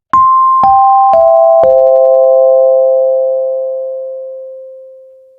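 Chime sound effect: four bell-like electronic notes struck half a second apart, stepping down a major arpeggio, the last note ringing on and fading away slowly.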